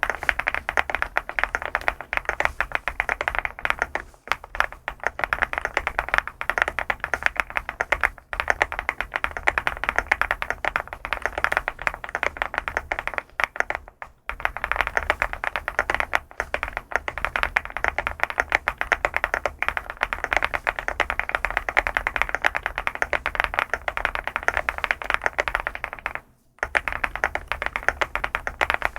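Fast, continuous typing on an SPM LUCK68 custom mechanical keyboard: a dense stream of keystroke clacks, broken by short pauses about 4, 8, 14 and 26 seconds in.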